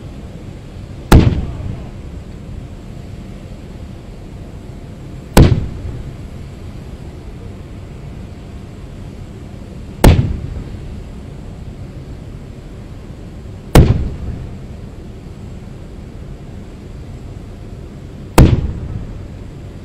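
Ceremonial gun salute: five loud cannon shots, one every four to five seconds. Each is a sharp boom with a short echoing tail.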